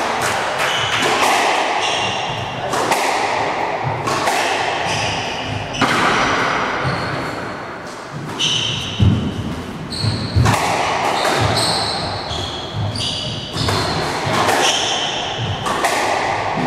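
Squash rally: the ball smacks off the rackets and walls again and again at an uneven pace, with short high squeaks of court shoes on the wooden floor.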